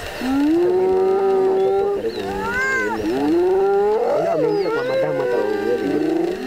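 Spotted hyenas calling around a lion kill: several drawn-out calls that rise in pitch and overlap, with new calls starting about two seconds in and again near the end.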